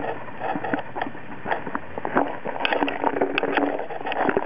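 Empty plastic bottle crinkling and clicking as a Rottweiler puppy bites and shoves it, in an irregular run of short crackles.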